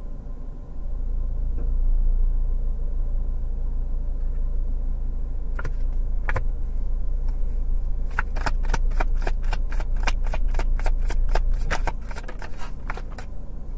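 Tarot cards being shuffled by hand: a few scattered flicks, then from about eight seconds in a quick run of card snaps, several a second. A low steady rumble runs underneath.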